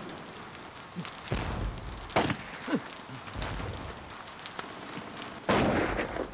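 Steady rain falling on wet ground, broken by several sudden bangs; the loudest comes about five and a half seconds in.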